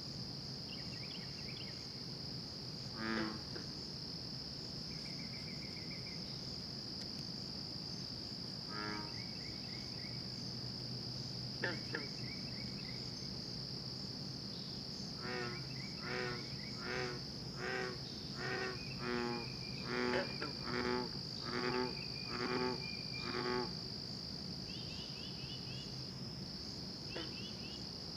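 Frogs giving short pitched calls: a few scattered ones, then a run of about a dozen in quick succession. Under them runs a steady high chirring of crickets.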